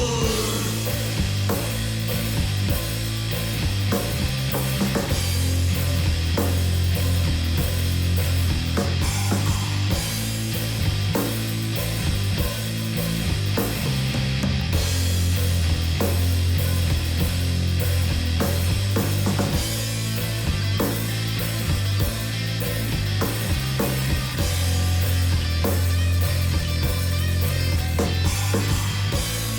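Stoner rock from a three-piece band: a heavy, loud bass riff moving in blocks, with guitar and a steady drum kit beat throughout.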